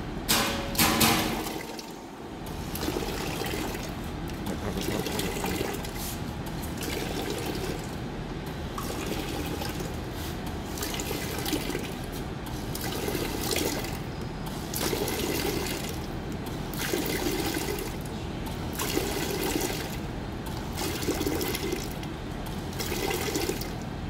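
Two-nozzle electric liquid filling machine running in automatic mode: the pump switches on in regular pulses roughly every two seconds, with liquid running and splashing from the nozzles. A short, louder burst of noise comes about a second in.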